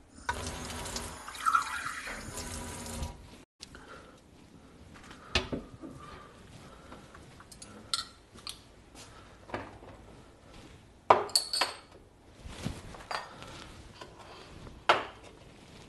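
Water running from a tap into a glass for about three seconds, then scattered short knocks and clinks.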